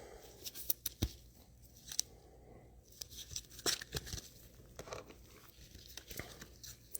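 Faint crinkling and tearing of plastic card packaging, with scattered small clicks as trading cards are handled.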